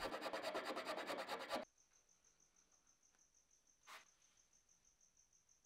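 A small hand tool rasping out a dowel hole in a walnut tenon to elongate it, in fast, even strokes for about a second and a half. Then near silence with a faint, high, pulsing tone, and a single soft tick near the end.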